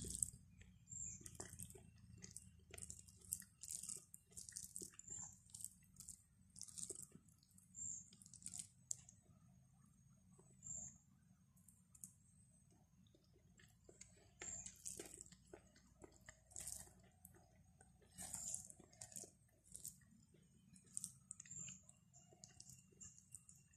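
Faint, irregular chewing and mouth smacks of a person eating rice and curry by hand, in short clusters of wet clicks a second or two apart.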